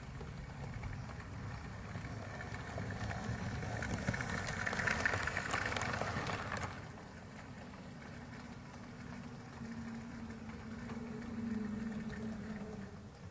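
Model railway locomotive and parcels van running over the track and pointwork, a rolling rattle and clicking of the wheels on the rails that grows loudest as the van passes close by and then drops away suddenly. A steady low motor hum follows and grows louder near the end as the locomotive approaches.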